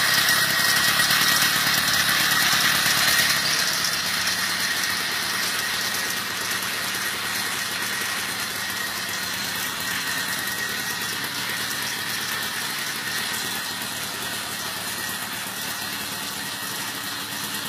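50cc two-stroke engine of a motorized bicycle kit running steadily at idle, a fast buzzing rattle; it is loudest for the first three seconds and then a little quieter.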